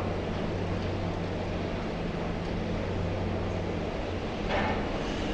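Heavy machinery's diesel engine running steadily, a constant low hum over a wash of site noise.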